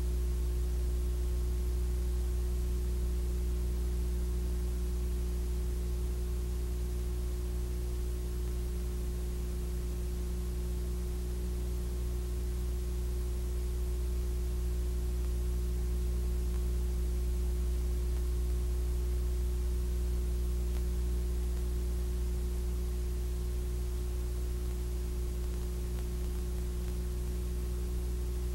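Steady electrical hum with a faint hiss and nothing else: the empty soundtrack of silent Super 8 footage transferred to VHS.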